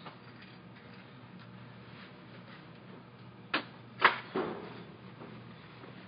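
A few sharp knocks and clicks, three close together a little past the middle with the second the loudest, over a faint steady low hum.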